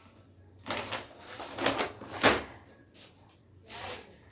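A person sneezing: a couple of breathy intakes build up to one sharp, loud sneeze about two seconds in, followed by a softer breath near the end.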